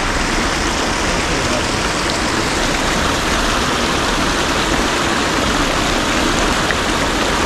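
Creek water rushing, a steady even hiss.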